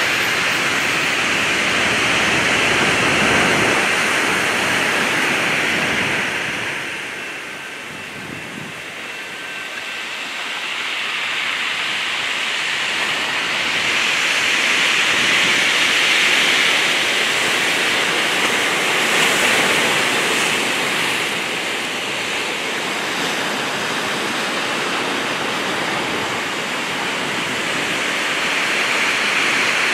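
Ocean surf breaking and washing against a rock revetment: a steady rushing wash that ebbs about a quarter of the way through and builds again.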